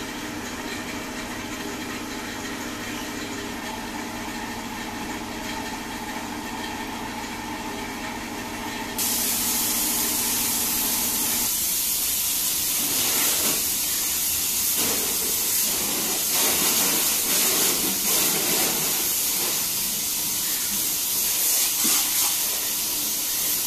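A steady machine hum. About nine seconds in, a loud hiss starts suddenly as a pressure-washer jet sprays water onto a soaped car's body. The hum stops a couple of seconds later, and the uneven spray hiss continues.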